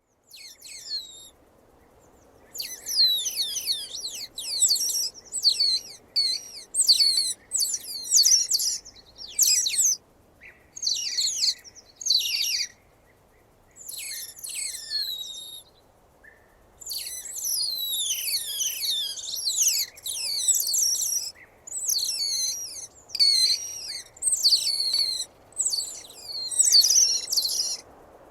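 Otter giving high-pitched chirps and squeals: bursts of rapid, falling squeaks, a second or so each, repeated over and over with short pauses.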